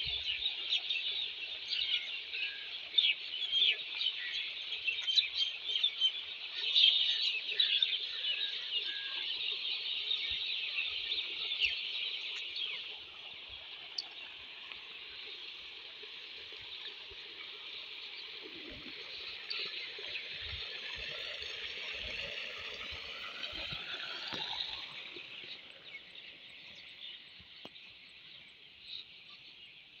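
A dense chorus of many small birds chirping: a continuous high chatter, busiest in the first dozen seconds, then steadier and softer, fading after about 25 seconds.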